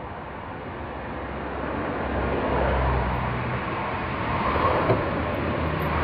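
Road traffic passing: vehicle engine and tyre noise swelling over the first few seconds and staying steady, with a light click about five seconds in.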